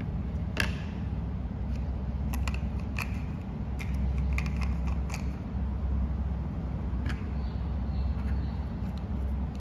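Hard plastic toy food pieces clicking and tapping as they are handled and set down on a plastic tray: a run of sharp clicks over the first five seconds and one more about seven seconds in, over a steady low hum.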